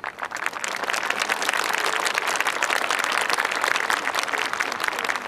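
Audience applauding: a dense patter of many hands clapping that starts suddenly and keeps up steadily.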